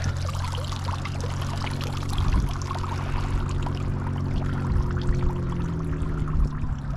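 Water splashing and trickling in shallow water by the rocks, over a steady low motor hum that drops slightly in pitch near the end.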